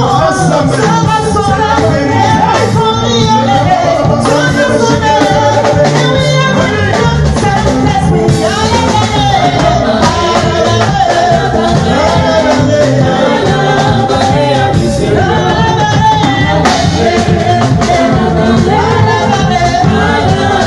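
A woman sings a gospel praise song into a microphone over loud instrumental accompaniment with a steady beat.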